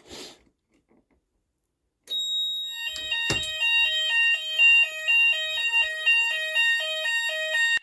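Fire alarm sounders set off by a manual call point, starting about two seconds in: a steady high tone, then alternating two-tone alarm patterns switching about twice a second. A single sharp knock comes shortly after they start.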